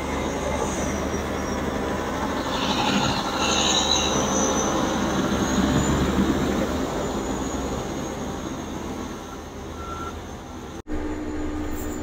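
John Deere 9630 four-wheel-drive tractor's diesel engine running as it drives past pushing snow with a 16-foot silage blade, getting louder as it passes and then fading as it pulls away. A thin high squeal rides over the engine about three to five seconds in.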